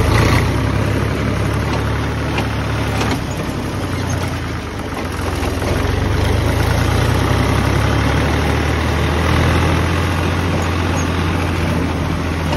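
Farm tractor's diesel engine running steadily while the tractor drives along, a strong low drone with a slight dip about four and a half seconds in.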